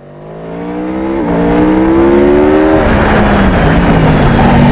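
Racing engine accelerating hard through the gears, its pitch climbing and then dropping twice as it shifts up, swelling to full loudness over the first two seconds and turning rougher near the end.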